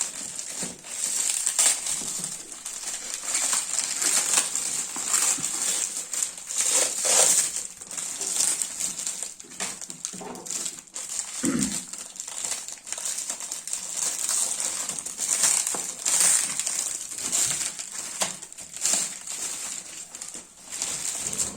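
Delivery packaging being crumpled and torn open by hand: continuous irregular crinkling and crackling, with a short low sound about halfway through.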